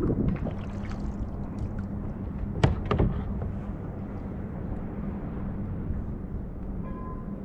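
Wind buffeting the microphone over water lapping around a kayak, a steady rumble with a faint low hum underneath. Two sharp knocks come close together about three seconds in.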